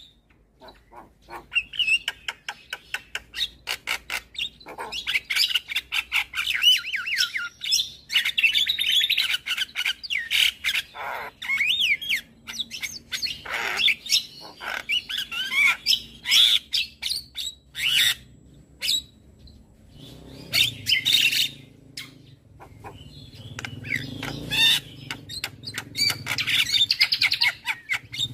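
Javan myna singing a busy stream of rapid clicks, chatter and whistled notes, with harsher, lower calls in the last several seconds.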